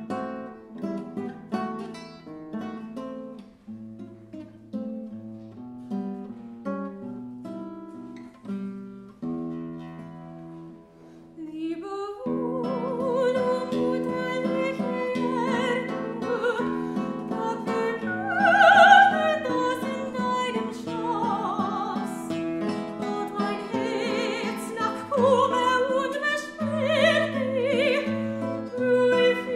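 Live classical art song: a guitar plays alone, picked notes in a steady pattern, then about twelve seconds in a female classically trained voice enters and sings with vibrato over the guitar accompaniment, swelling loudest on a sustained high note a little later.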